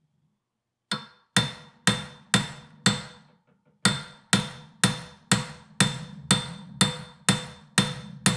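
Hammer striking a steel bushing driver, driving a new kingpin bushing into an early Ford spindle. Five ringing metal blows come at about two a second, then a short pause, then about ten more at the same pace.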